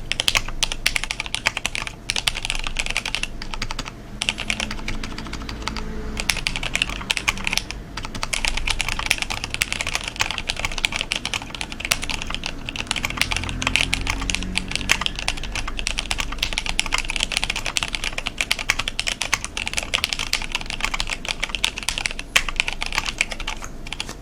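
Mechanical keyboard with linear Cherry MX Black switches fitted with 55 g springs, typed on in fast continuous runs with a few short pauses. The typing stops just before the end.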